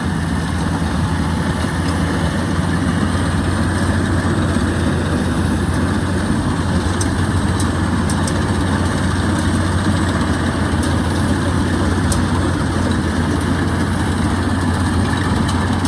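Diesel engine of a Yanmar combine harvester running steadily, a constant low hum with heavy mechanical noise, as the machine works in deep, sticky mud.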